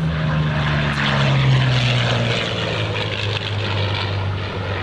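Piston-engined World War II propeller warbird flying past, its engine note dropping steadily in pitch as it goes by, loudest about a second and a half in.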